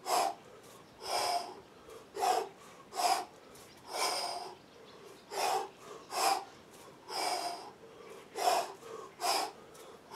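A man breathing hard in short, forceful puffs, about one a second and sometimes in quick pairs, in rhythm with the effort of one-arm kettlebell snatches.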